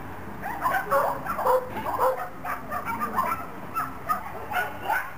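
A dog barking and yipping over and over, several short high barks a second.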